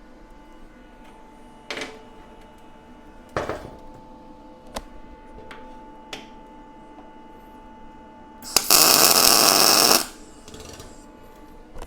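A few light clinks and knocks of steel parts being handled, then a single tack weld about eight and a half seconds in: the welding arc crackles loudly for about a second and a half and stops, tacking a center rib to the steel floor sheet.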